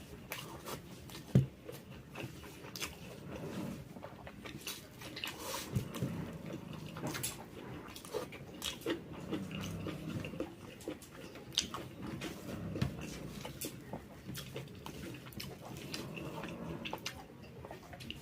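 Close-miked chewing of a mouthful of jackfruit curry: irregular wet smacks and small clicks of lips and teeth. A single sharp knock comes about a second and a half in.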